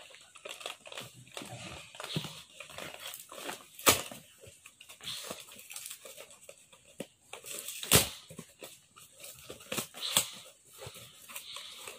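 Cardboard shipping box being torn open by hand: irregular crinkling, scraping and tearing of packing tape and cardboard, with two sharp, loud cracks about four and eight seconds in.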